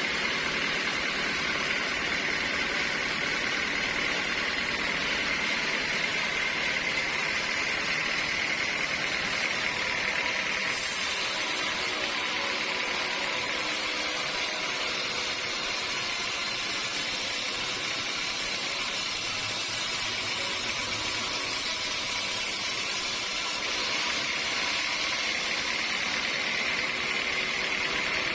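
Sawmill machinery running steadily: a continuous mechanical noise with a steady high whine, which fades about eleven seconds in and returns near the end.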